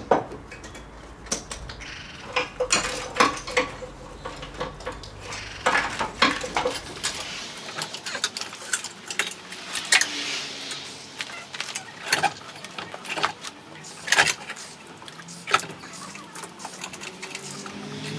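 Irregular metallic clinks and clanks of hand tools and car parts being handled during work on a car's engine bay. A low background hum stops about seven seconds in.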